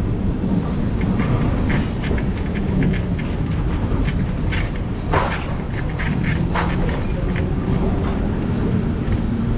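Vintage 1930s wooden Lisbon tram running along its street rails, heard from inside the car: a steady rumble of wheels on track with frequent clicks and rattles, and a louder clank about five seconds in.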